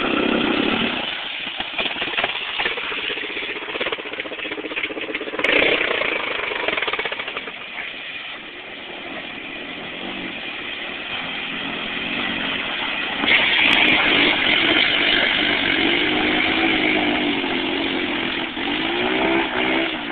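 Honda Rancher ATV's single-cylinder engine running through mud, getting fainter as the quad moves off and louder again as it comes back. The revs rise and fall in quick swells near the end.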